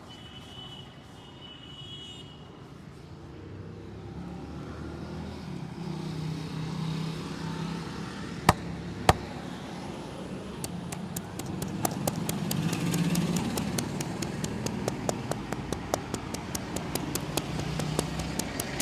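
Rapid hand tapping of a massage, several sharp strikes a second through the second half, preceded about halfway through by two loud sharp cracks half a second apart. A steady hum of street traffic underneath.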